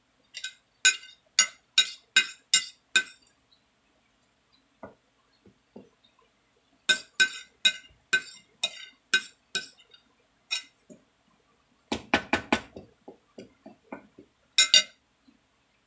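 Metal spoon clinking and scraping against a ceramic plate as lumpia filling is scooped and tapped off. The sharp clinks come in several runs of about two a second, with a denser cluster of scrapes about twelve seconds in.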